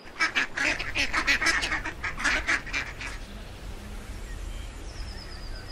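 Ducks calling in a quick run of short, harsh quacks, about four a second for the first three seconds, then falling quiet.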